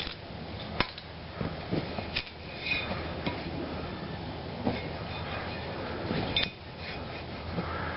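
Steel tools and bolts clinking and knocking as the bolts holding a brake disc to a wheel hub are worked off and set down. The sound comes as several irregular sharp metallic knocks, one ringing briefly.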